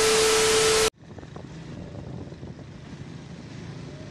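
A loud burst of TV-static noise with a steady tone running through it, a glitch transition effect, that cuts off suddenly about a second in. Steady road-traffic noise follows.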